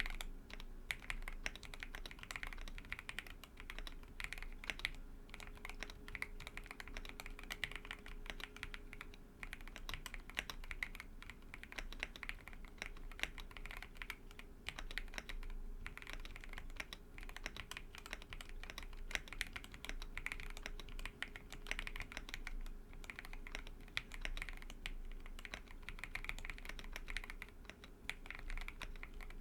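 Continuous soft typing on a TOFU65 aluminium-case mechanical keyboard. It has Everglide Aqua King v3 linear switches with 67g springs on a polycarbonate plate, and PBT keycaps. The result is a steady, dense stream of muted key clacks.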